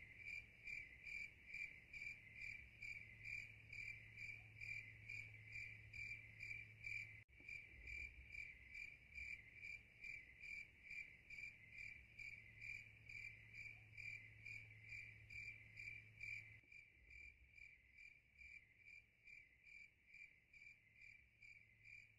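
Faint cricket chirping: an even, high-pitched pulse of about two chirps a second, over a low steady hum. There is a brief dropout about seven seconds in, and about seventeen seconds in the hum stops and the chirping turns quieter.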